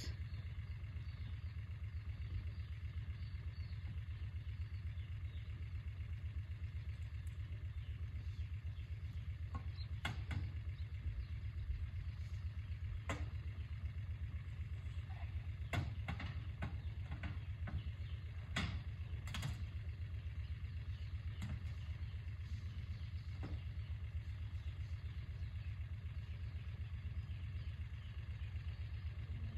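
Utility vehicle's engine idling with a steady low rumble. A few sharp knocks sound now and then as old hay is forked into the metal dump cart hitched behind it.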